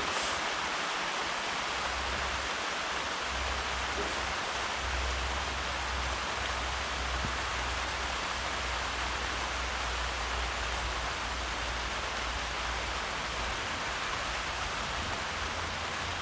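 Steady rainfall, an even hiss with no breaks, with a low rumble underneath from about a second in.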